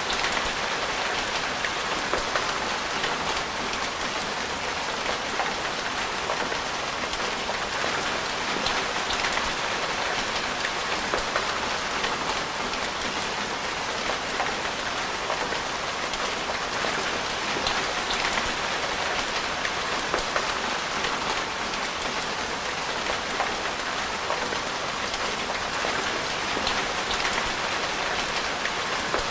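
Steady rain falling, with scattered small drop ticks over an even hiss.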